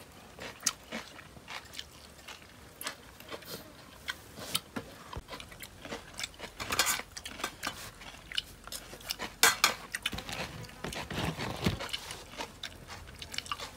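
Irregular clinks of spoons against plates and dishes, with crunchy chewing of lotus-stem salad. The clicks are scattered, with no steady rhythm, and come thickest in the second half.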